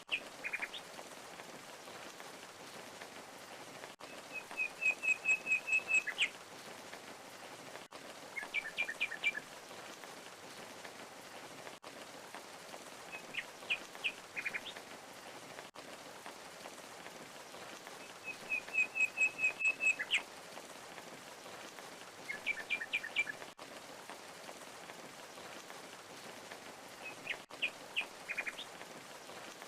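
Steady rush of a waterfall with a songbird singing short phrases over it: groups of a few sharp chirps every four to five seconds, and twice a fast trill of about eight notes.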